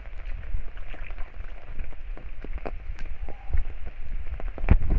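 Heavy rain falling, with single drops ticking irregularly close to the microphone over a steady low rumble; a couple of louder knocks near the end.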